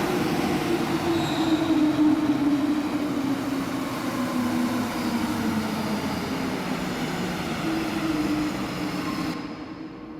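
NS-16 metro train braking into a station, heard from inside the car: the traction motor's tone falls in pitch over running and wheel noise, then the train goes quieter near the end as it comes to a stop.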